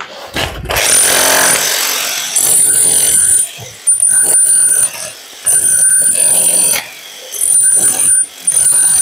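Electric rotary hammer chiselling a channel into a concrete wall for electrical conduit, run in about six bursts of roughly a second each with short pauses between, a steady high motor whine over the hammering.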